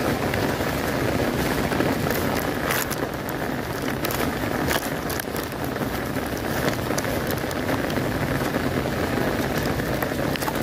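Heavy rain falling steadily on an umbrella held overhead and on the flooded water around it, with a few sharper taps about three and five seconds in.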